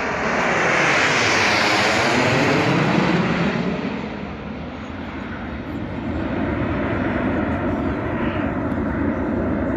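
Display aircraft flying past during an airshow: a loud engine rush that swells and peaks about one to three seconds in, its tone sweeping as it passes, then eases into a steadier rumble.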